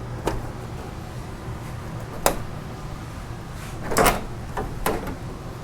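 The back cover of a 52-inch Samsung LCD TV being worked loose and lifted off: a few scattered clicks and knocks, the loudest a double knock about four seconds in.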